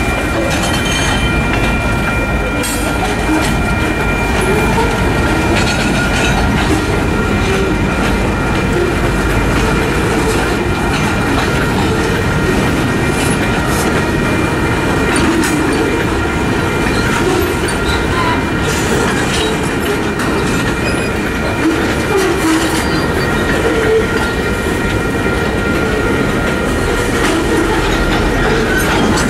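BNSF local freight train's cars rolling through a road crossing, wheels clattering over the rail joints. The crossing's warning bell rings steadily on top, heard as a set of clear high tones.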